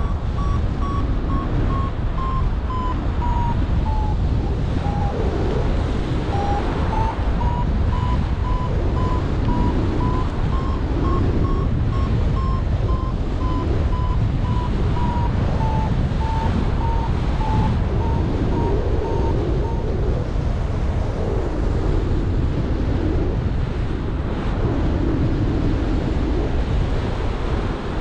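Airflow rushing over the microphone of a flying paraglider pilot. Over it, a variometer gives a steady series of short beeps whose pitch dips, rises and sinks again, a sign that the glider is climbing in lift. The beeping stops about two-thirds of the way through.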